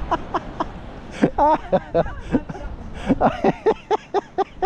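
People laughing: runs of short, quick chuckles.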